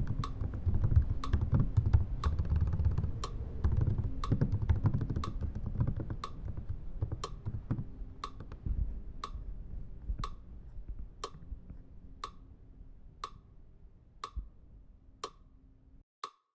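Fingers typing on a computer keyboard, a dense clatter that gradually fades out and stops near the end. Over it, a regular sharp tick with a short ping about once a second, which carries on alone at the end.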